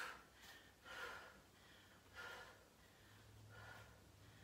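Faint breathing: a few soft breaths, each a short hiss.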